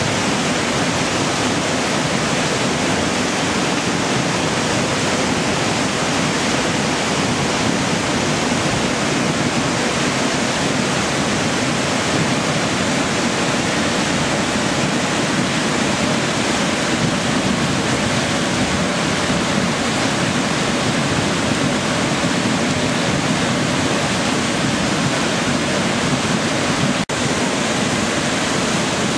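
Loud, steady rush of water from a stream swollen by bad weather, running unbroken throughout.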